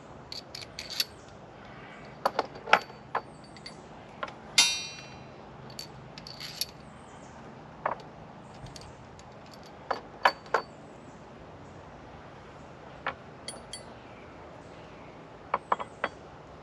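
Scattered clicks and clinks of small metal parts being handled. About four and a half seconds in there is a louder metallic clink that rings briefly.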